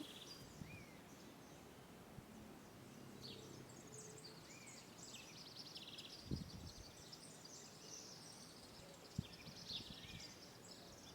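Faint birds chirping and twittering, with a short arched call heard three times, over a quiet background and a couple of soft low thumps.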